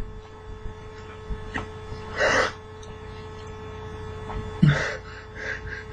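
A man's sharp, breathy gasp about two seconds in and a second, heavier breath with a low grunt near five seconds, as he grimaces at what he is eating. A steady electrical hum runs underneath.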